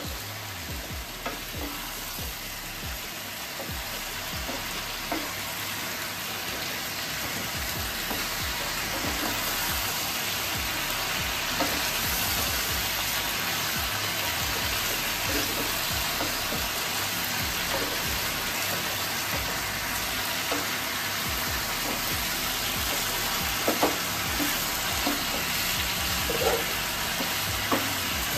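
Chopped mixed vegetables sizzling in oil in a nonstick kadai as they are sautéed with spices and turned over with a spatula, a steady hiss with light scrapes of the spatula and a few taps against the pan near the end.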